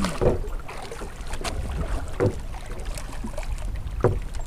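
Wind buffeting the microphone in a steady low rumble, with three dull knocks about two seconds apart.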